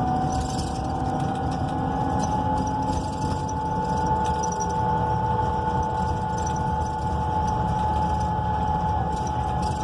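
Inside a NABI 42 BRT transit bus while it is under way: the Cummins Westport L9N natural-gas engine and drivetrain run steadily with a low rumble and a steady whine, and there are light cabin rattles.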